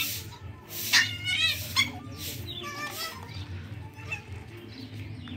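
Puppies yipping and whimpering in short high squeals while play-fighting with their mother dog, several of them between one and three seconds in. A low steady hum sits underneath.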